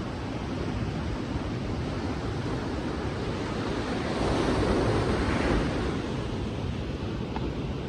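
Sea waves washing onto a beach, a steady surf with one louder wave breaking and swelling about halfway through.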